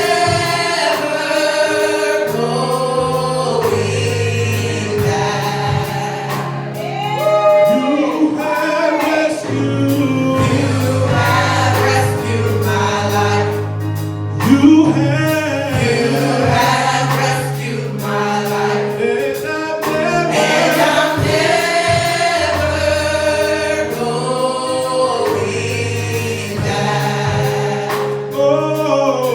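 Gospel choir singing a worship song over instrumental backing, with held bass notes and regular percussion hits.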